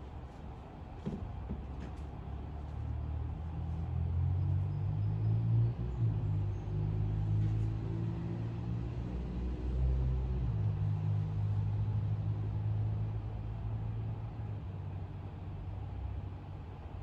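A motor vehicle's engine running with a low hum, growing louder over a few seconds and then slowly fading away.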